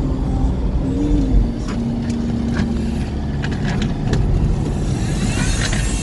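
Steady low rumble of a car cabin while driving: road and engine noise, with a few faint clicks.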